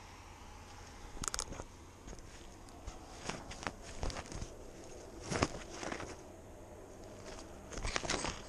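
A cat walking through dry grass and dead leaves, its steps and the stems brushing close against a GoPro mounted on the cat. The sound is irregular clusters of sharp clicks and rustles, about a second in, around the middle and near the end.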